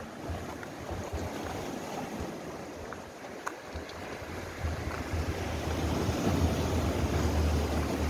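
Sea waves washing and breaking against a rocky shore, with wind buffeting the microphone; the low wind rumble grows stronger in the second half.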